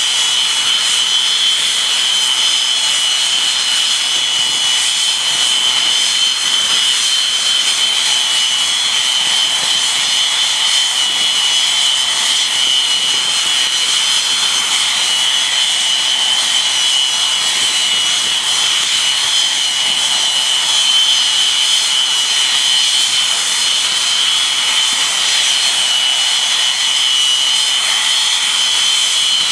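English Electric Canberra's twin Rolls-Royce Avon turbojets running on the ground at close range: a loud, steady high-pitched whine over a rushing jet noise.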